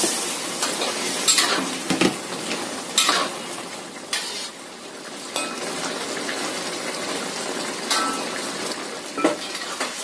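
Chicken and radish in a thickening sauce sizzling in a wok while a spatula stirs it, with a sharp scrape or knock of the spatula against the wok about once a second.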